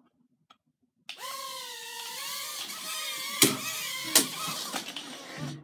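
Sky Viper Nano mini quadcopter's tiny motors and propellers spinning up about a second in, a high whine that wavers slightly in pitch. There are two sharp knocks in the middle, and the whine cuts out near the end.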